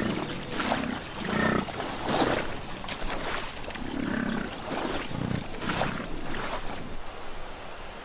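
Wolves barking and snarling in a run of short, harsh calls, about ten of them, as the pack harries a grizzly bear; the calls stop about seven seconds in.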